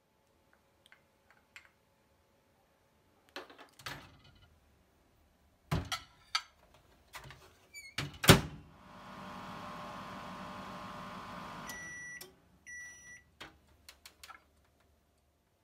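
Mitsubishi microwave oven: a few clicks and knocks as the glass goes onto the turntable, the door shut with a loud thunk, then the oven running with a steady hum for about three seconds. It beeps twice when the heating ends, and clicks as the door is opened.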